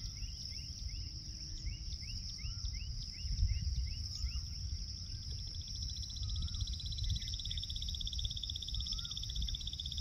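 Insects droning steadily in a high, shrill hum, with a second, pulsing insect trill joining about halfway through. Over it, birds call: a quick run of short chirps in the first few seconds and a short wavering note about every two seconds, all over a low rumble.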